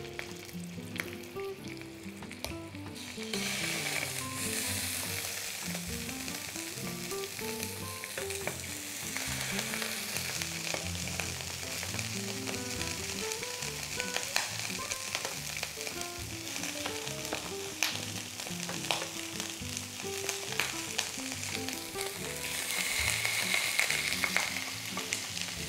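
Raw Italian sausages sizzling in hot oil in a stainless steel frying pan as they are laid in one by one with tongs. The sizzle swells about three seconds in and again near the end, with a few sharp clicks and pops.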